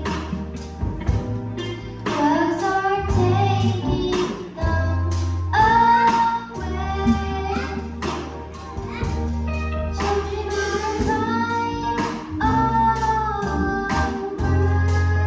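Children's gospel choir singing with band accompaniment: a low bass line under the voices and a regular drum beat.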